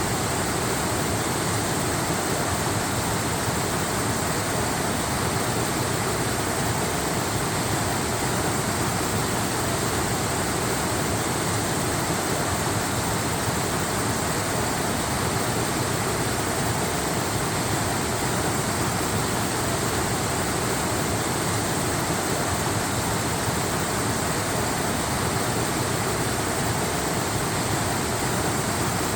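Waterfall rushing: a steady, unbroken roar of falling water that does not change.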